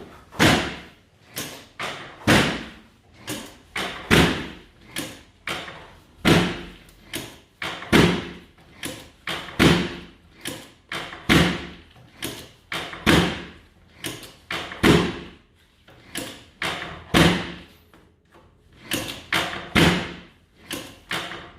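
Chiropractic drop table's pelvic drop section repeatedly being released under the chiropractor's thrusts, a thud about every two seconds with lighter knocks in between.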